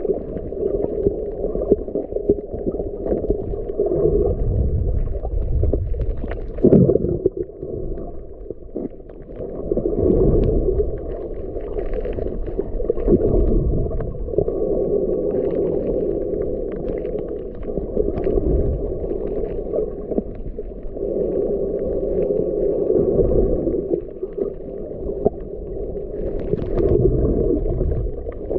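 Muffled underwater sound through a camera's waterproof housing: water moving and sloshing around the camera as it drifts over the reef, with a low wavering hum that swells and fades. There are a couple of brief knocks, one about seven seconds in and one near the end.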